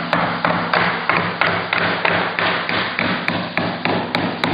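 Hammer driving nails through a window's nailing flange, with quick even strikes about three a second.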